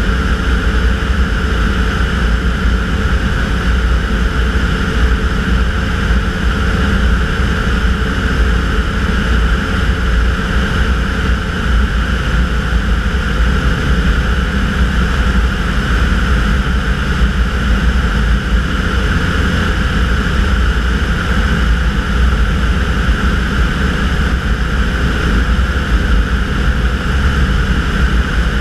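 Tanarg microlight trike's engine and pusher propeller running steadily in cruise flight, a loud even drone with no changes in power.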